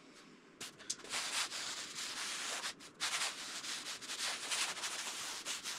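Palms sliding and pressing over a large sheet of balsa wood, a rough swishing in repeated strokes that starts about half a second in. The builder is feeling whether the wing's top sheeting lies flat.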